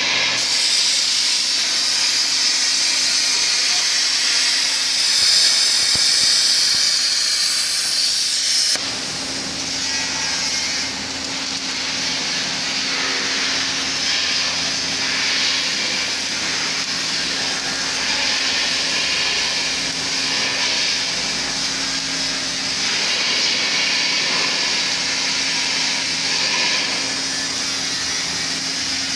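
Beam coping machine cutting the end of a W14 steel beam: a loud, steady high hiss from its cutting torch that drops away abruptly about nine seconds in, leaving a steady machine hum under a softer, wavering hiss.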